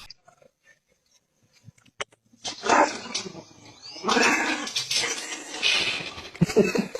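A dog growling and barking in rough, noisy outbursts that start after about two seconds of near silence.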